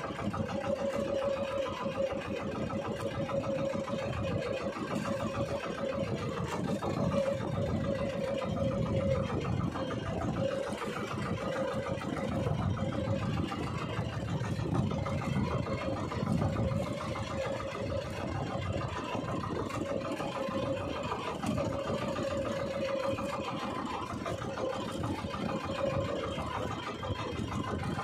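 Small outrigger fishing boat's engine running steadily, a constant drone with a wavering tone.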